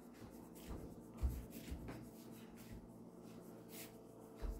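Soft footsteps and the rubbing of a hand-held phone as it is carried while walking: a few irregular muffled thumps and scrapes over a faint steady hum.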